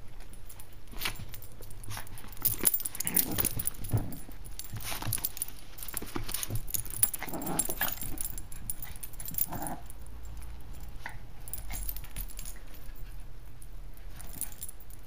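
Two Yorkshire terrier puppies play-wrestling: scuffling and quick clicks, with a few brief dog growls.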